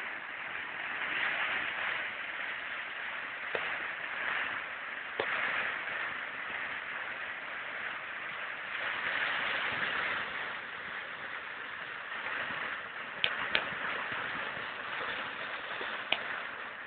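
Steady rush of fast, turbulent river water, with a few short sharp clicks, two of them close together past the middle.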